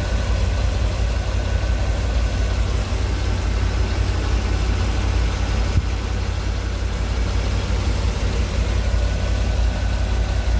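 2002 GMC C6500 truck engine idling steadily, heard up close in the open engine bay, with a strong low rumble.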